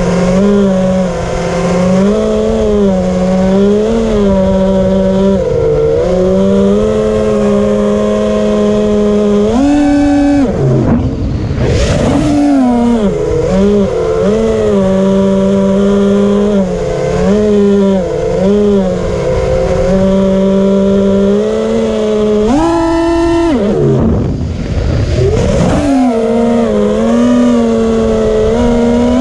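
The brushless motors (DYS Samguk) of an FPV quadcopter in flight, a steady buzzing whine whose pitch wavers with throttle. The pitch jumps sharply on two hard throttle punches, about ten seconds in and again a little after twenty seconds, each followed by a brief dip. The owner finds the buzzing weird.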